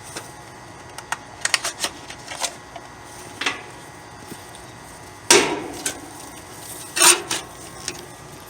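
Scattered clicks and knocks of tools and parts being handled, several in quick succession early, with the loudest sharp knock a little past halfway.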